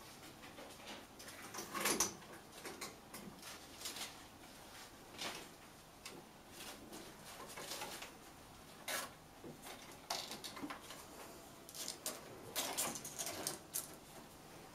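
Kittens scrambling on a tree-branch cat tree: irregular scratches and scrapes of claws gripping the bark, with small knocks. The loudest scuffle comes about two seconds in, and another run of scratching near the end.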